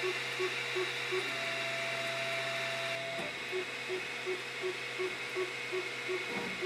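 3D printer at work: its stepper motors give a short whine that repeats about three times a second as the head traces a row of identical round holes. About a second in, a single steady higher tone replaces the repeats for about two seconds before they resume, all over a steady hum.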